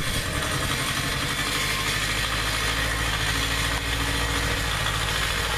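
Ford 1200 compact tractor's diesel engine running steadily as the tractor moves through snow, with a constant hiss over it.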